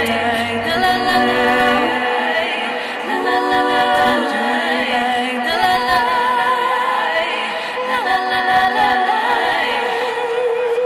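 Several voices singing together in close harmony, largely unaccompanied, holding sustained chords. A low bass note underneath stops about two seconds in.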